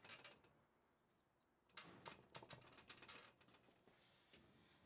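Faint clicks, light metal taps and a soft scrape as hands work the rusty end bell off an old 1/3 HP electric motor's housing. The taps cluster about two to three seconds in, and the scraping comes near the end.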